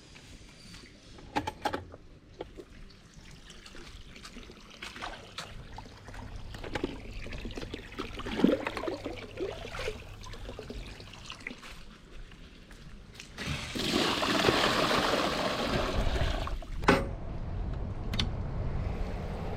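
Water being poured and sloshed in a container, with knocks from handling; about fourteen seconds in comes a louder rush of pouring lasting some three seconds. After that a steady bubbling runs on from an aerator in the water.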